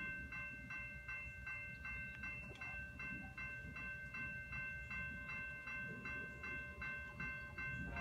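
Railroad grade-crossing warning bell ringing in a fast, even repeat of about two to three strokes a second, over a low rumble: the crossing has activated for an approaching train.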